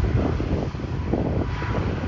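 Jet engines of a Ryanair Boeing 737 rumbling as it moves away down the runway, mixed with wind buffeting the microphone.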